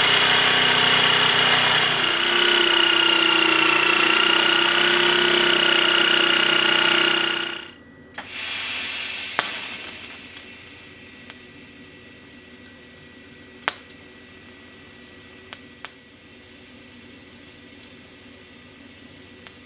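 An Einhell jigsaw cutting through 6 mm aluminium plate runs with a loud, steady whine and stops about seven and a half seconds in. Then a short hiss fades away, followed by the quieter steady hum of TIG welding on the aluminium, with a few faint ticks.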